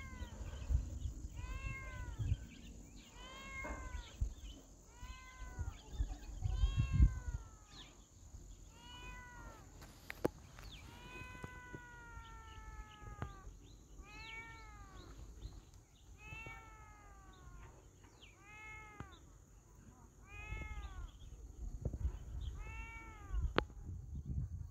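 A trapped cat meowing over and over, one call about every second or so, with one longer, drawn-out meow about halfway through.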